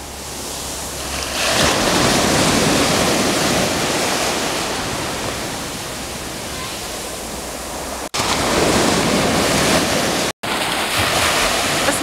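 Mediterranean surf breaking and washing up a sandy beach. It swells louder about a second and a half in, eases off, and swells again after about eight seconds, with two brief cuts in the sound near the end.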